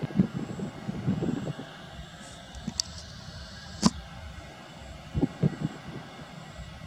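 Wind buffeting the microphone in irregular gusts over the steady engine noise of a taxiing Airbus A320 jet airliner, with two sharp clicks in the middle.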